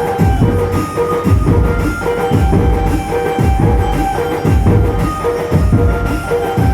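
Dhumal band playing: heavy drums pound out a steady beat under a short repeated melody line.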